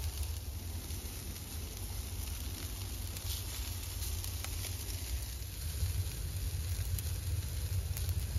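Charcoal fire under skewered beef short ribs: fat sizzling on the coals, with a few sharp crackles, over a steady low rumble.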